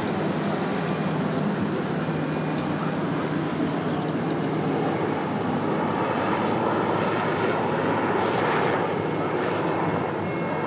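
A steady engine drone over wind and water noise, swelling a little past the middle and easing near the end.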